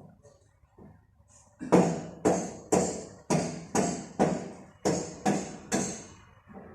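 A run of about ten sharp knocks, roughly two a second, each dying away quickly, stopping a little after six seconds in.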